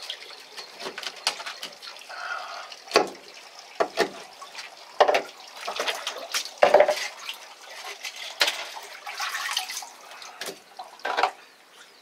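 Water splashing and trickling, broken by irregular sharp knocks and wet slaps as freshly caught fish are handled and bled on the deck with a knife.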